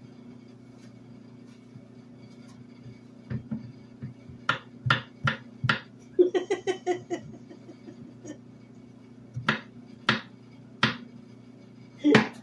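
Santoku knife chopping peeled eggplant on a bamboo cutting board: sharp single knocks of the blade striking the board, in irregular groups. There is a pause in the middle, then the knocks start again.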